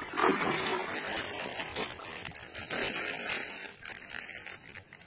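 A hooked fish thrashing and splashing at the water's surface as it is played on a line, in a run of irregular splashes with the loudest near the start.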